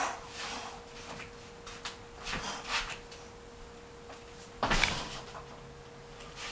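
Sandalled feet shuffling and stamping on a wooden floor, with swishes of clothing and limbs, during a kung fu tiger form. The heaviest stamp comes a little past the middle, over a faint steady hum.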